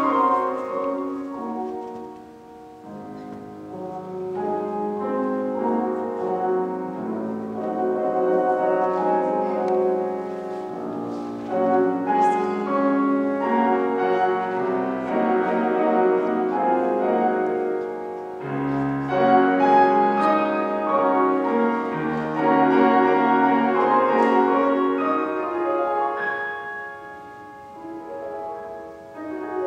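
Grand piano playing a flowing piece of many overlapping, sustained notes. It grows quieter briefly about two seconds in and again near the end.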